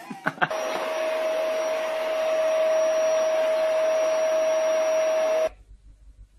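A steady whir with a constant hummed tone, like a small electric motor running, starting just after a couple of quick knocks and cutting off suddenly about five and a half seconds in.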